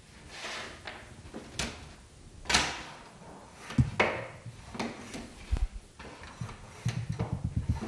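Small hand plane cutting a bevel along the edge of a lead-tin organ-pipe sheet: several short scraping strokes. A quick run of low knocks comes near the end.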